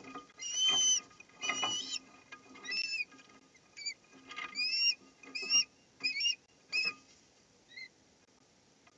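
Ospreys calling at the nest as a fish is delivered: about a dozen high, whistled chirps, the first few long and the later ones short, each rising then falling, the last one faint about eight seconds in.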